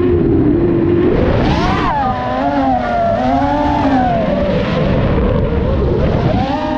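FPV racing quadcopter's electric motors and propellers whining, the pitch climbing sharply about a second and a half in, wavering up and down, then climbing again near the end as the throttle changes.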